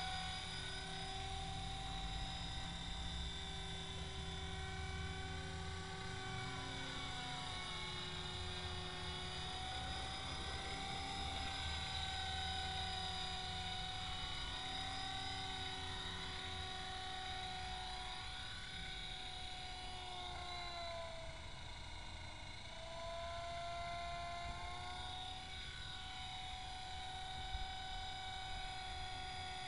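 Electric 450-size RC helicopter (EXI 450 Pro, an Align T-Rex 450 Pro clone) in flight: a steady high whine from its brushless motor and drive gears over the hum of the spinning rotor. About two-thirds of the way through, the pitch sags and then rises back as the head speed changes during a turn.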